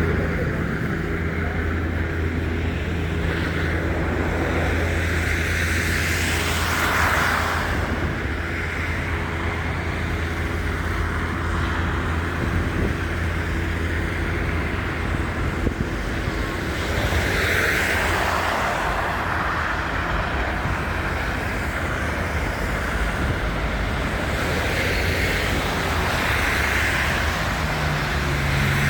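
City street traffic: a steady low hum of engines with cars passing, swelling about seven seconds in and again around eighteen seconds in.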